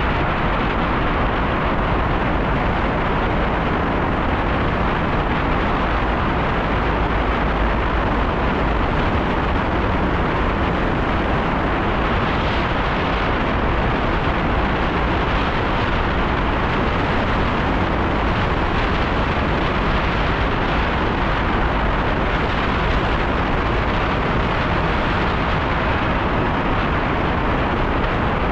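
Loud, steady wind noise buffeting the microphone while riding a bicycle.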